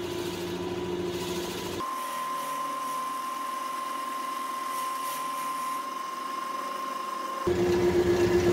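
Wood lathe running steadily while a 3/4-inch twist drill bit held in the tailstock bores into the end of the spinning mesquite vase neck. It is a constant motor hum with a steady whine. The low hum cuts out abruptly about two seconds in and comes back near the end.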